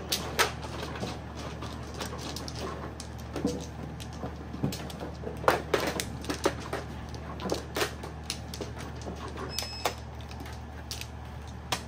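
Mahjong tiles clacking on the table in short, sharp, irregular knocks, about one or two a second, as tiles are drawn and discarded during play. A low steady hum runs underneath.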